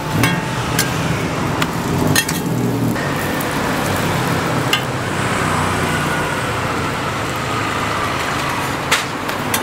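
A few sharp clinks and scrapes of metal and wooden spatulas working a roti on a flat round griddle, over a steady background noise.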